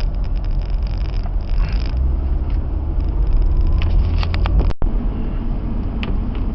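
Car engine and road noise heard from inside the car, a steady low rumble. A few sharp clicks come around four seconds in, and the sound cuts out for an instant just before five seconds.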